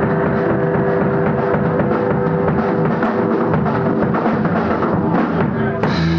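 Rock band playing loud, driven by a full drum kit with bass drum and snare under electric guitar. Near the end a crash comes in and the notes are held.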